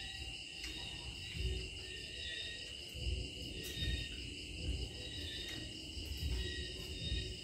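Steady high-pitched chorus of night insects trilling without a break. Soft low thumps come now and then over it.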